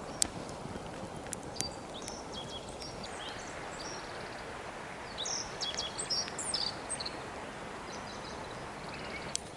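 A small bird chirping several short high calls over a steady rushing outdoor background, with a few sharp clicks in the first couple of seconds.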